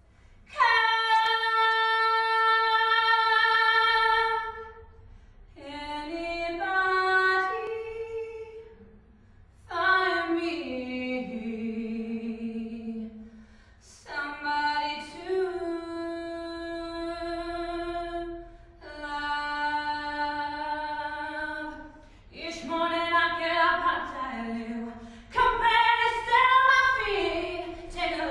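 A woman singing unaccompanied, in long phrases with sustained held notes and short pauses between them. The first note comes in about half a second in and is held for about four seconds.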